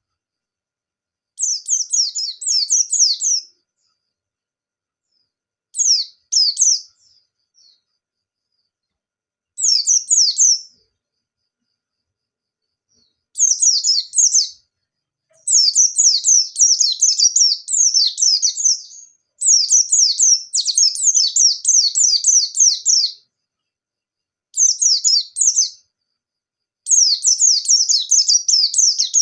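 A white-eye (pleci) singing in bursts of rapid, high chirping notes, in phrases of one to four seconds separated by short pauses. The longest continuous runs come about halfway through.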